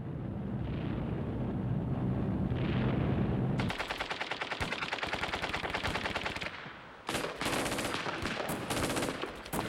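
Machine-gun fire in rapid bursts, coming in after a low rumble in the first few seconds, with a short break about seven seconds in.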